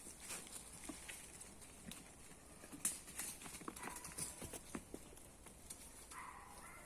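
Goats' hooves clicking and scuffling on the forest floor as they move about and play, in scattered faint knocks. A short call sounds near the end.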